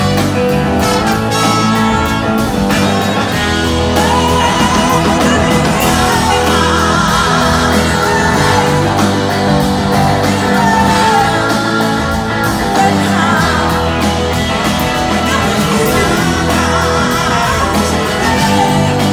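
A full band playing a blues-rock song live: electric guitar, drum kit and a horn section of saxophone, trumpet and trombone, with a woman singing into the microphone.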